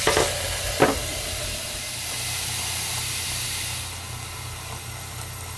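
Kitchen sink faucet running water into a glass measuring cup, a steady hiss with two short knocks in the first second. The flow goes quieter about four seconds in.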